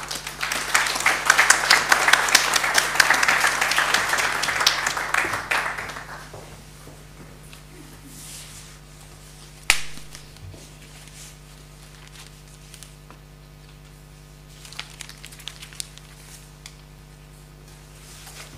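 Audience applauding for about six seconds and fading out. About ten seconds in there is a single sharp knock, and near the end a few light rustles of paper being handled.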